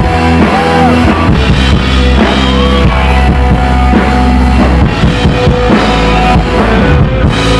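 Rock band playing live and loud, with electric guitar over a full drum kit.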